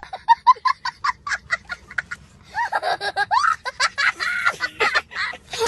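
High-pitched laughter: a quick run of short laughs about five a second, then several voices laughing and shrieking together.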